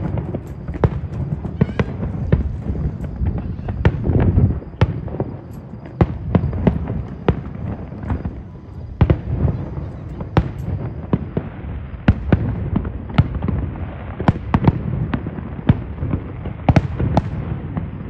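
Irregular sharp cracks and knocks, many of them, over a low rumble and the murmur of voices.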